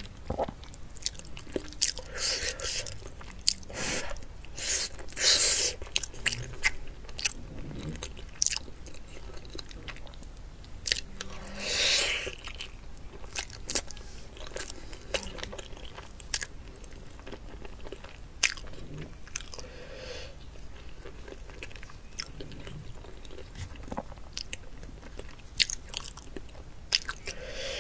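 A person chewing and biting fatty braised pork belly close to the microphone: a steady run of wet mouth clicks and smacks, with a few louder, longer stretches about 2, 5 and 12 seconds in.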